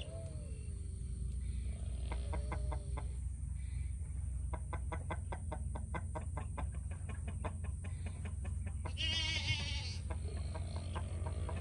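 Chickens vocalising: drawn-out low hen calls, then a run of quick, even clucks, with a louder, higher call about nine seconds in.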